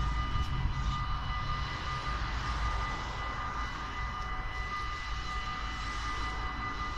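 Level-crossing warning bells ringing steadily as the barriers rise, over a low rumble.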